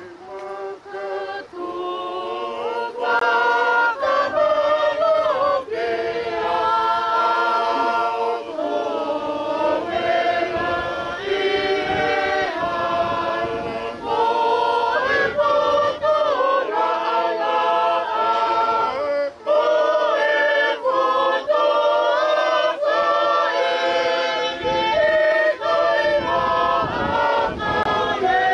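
A group of voices singing a Tongan song a cappella in several harmonised parts, with held notes.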